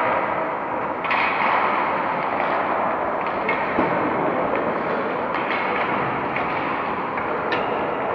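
Ice hockey play in an echoing indoor rink: skates scraping and carving the ice over a steady hall rumble, with several sharp clacks of sticks hitting the puck and ice.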